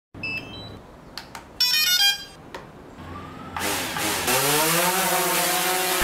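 Electronic intro sound effects: a few short beeps and clicks, a quick burst of chirping digital blips, then a whoosh with a pitched drone that rises and swells over the last two and a half seconds.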